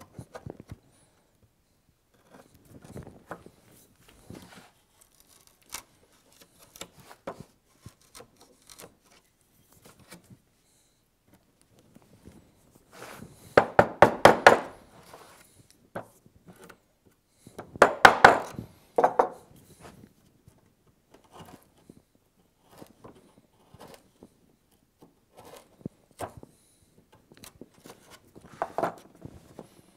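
Wooden mallet striking a bench chisel, chopping out the waste of a hinge mortise in the wooden chest lid: two runs of quick, loud blows about halfway through and a few seconds later, with lighter taps and knocks of the chisel on the wood between and near the end.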